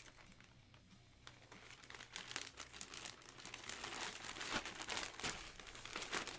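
Clear plastic bag crinkling and crackling as hands handle and fold it, growing louder from about two seconds in.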